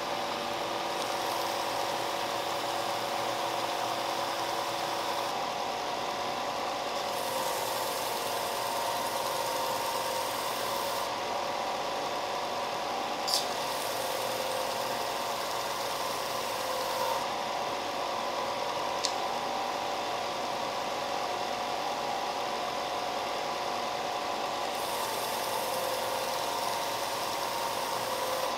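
Shop Fox benchtop belt and disc sander running steadily while hardwood coasters are pressed against the moving sanding belt in several passes, each pass adding a gritty hiss over the motor hum. Two sharp clicks come through about halfway in.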